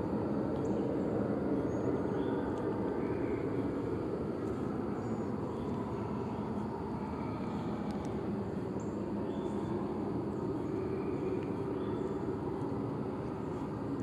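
Steady low outdoor rumble, with faint short bird chirps every second or two above it.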